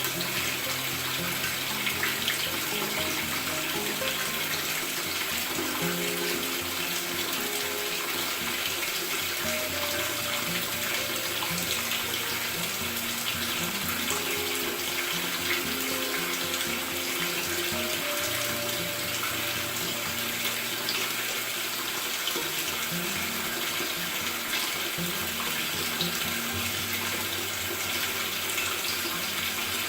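Water pouring steadily into the tub of a Maytag top-load washer as it fills, a continuous rushing hiss. Soft background music of held notes plays underneath.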